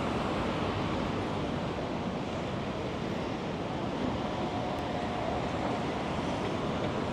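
Steady outdoor city noise of traffic, an even rush without distinct events.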